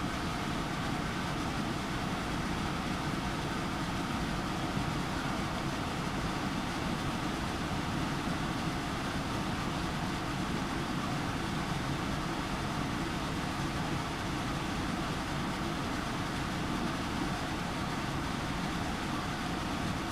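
An electric fan running steadily: an even rushing noise that does not change.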